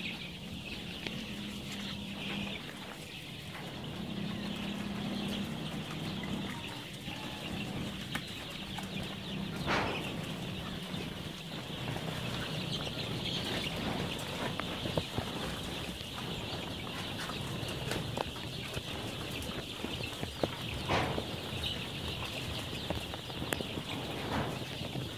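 A large flock of 12-day-old chicks peeping all at once, a dense high continuous chorus. A low steady hum and a few scattered knocks sit underneath.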